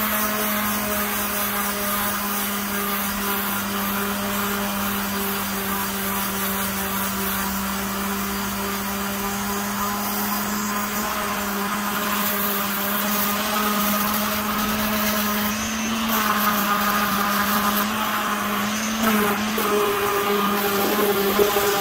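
Electric palm sander with 120-grit paper running steadily while sanding the factory varnish off a wooden axe handle. It gives a steady motor hum, which gets louder and less even in the last few seconds as it is worked against the wood.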